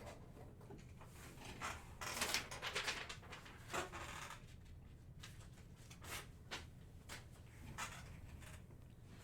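Handling noise: a short burst of rustling and scraping about two seconds in, then a sharper click and a few scattered light clicks and knocks.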